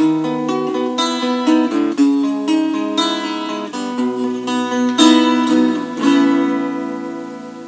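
Acoustic guitar played fingerstyle: a picked melody over held notes, ending on a chord about six seconds in that rings out and slowly fades.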